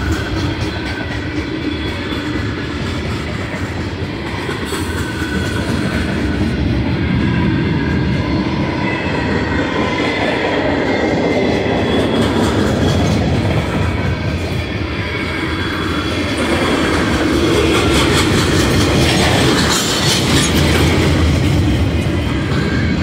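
Freight train cars (tank cars and boxcars) rolling past, their steel wheels clattering steadily over the rail joints.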